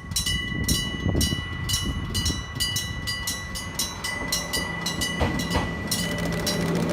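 Electric gong bells of a level crossing ringing rapidly, the bells on the two sides striking at different speeds and out of step. Under them a Hokuriku Railroad 8000-series electric train rumbles across, with a few wheel clacks over rail joints and a steady motor hum.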